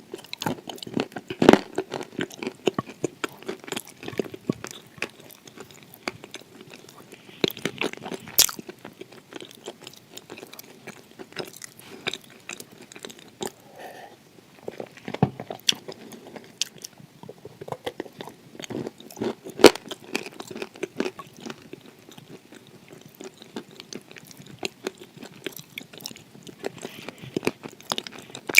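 A person biting and chewing edible clay close to the microphone: a run of irregular crunches and crackling bites, with a few sharper, louder snaps.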